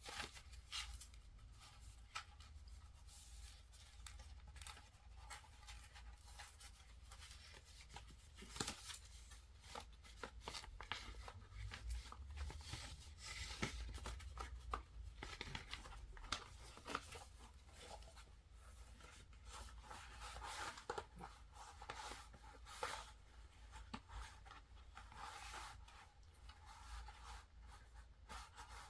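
Paper and plastic album contents being handled: faint rustling and crinkling with scattered light clicks and taps as posters and photo cards are sorted.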